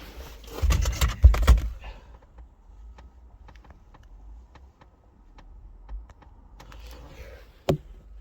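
Small metal car parts clattering and clicking as they are worked by hand to free a stuck piece: a burst of loud knocks about a second in, then scattered light clicks and one sharp click near the end.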